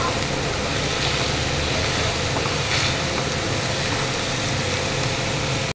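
Chopped vegetables sizzling in a frying pan as they are stir-fried and tossed with a spatula, over a steady low hum. The sound cuts off suddenly near the end.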